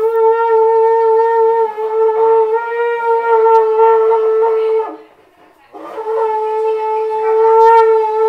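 A shofar blown in two long, steady blasts on one note. The first stops about five seconds in, and after a short gap a second blast starts.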